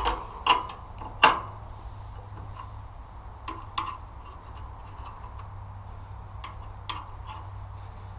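Sharp metal clicks and clinks of a wrench working a fuel injection line fitting on a small air-cooled diesel engine. The three loudest come in the first second and a half, then a few lighter ones, spaced irregularly.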